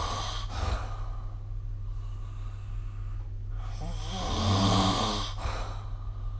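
A sleeping person snoring: one snore trails off in the first half second, then a second, long snore starts a little under four seconds in and lasts about a second and a half. A steady low hum runs underneath.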